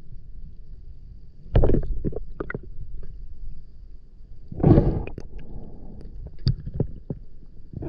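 Muffled water noise, as heard underwater, from a snorkeler moving through a river. Two loud whooshing surges come about one and a half seconds in and near the middle, with a few sharp clicks and a faint steady high tone beneath.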